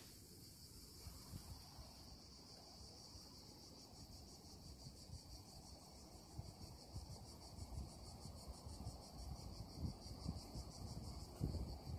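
A steady, high-pitched insect chorus with a fast pulsing shrill. Beneath it, a low uneven rumble grows stronger near the end.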